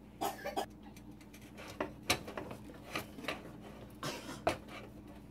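A utensil scraping and knocking against a stainless steel pot as thick fufu dough is stirred and pressed in quick, irregular strokes, working out the lumps.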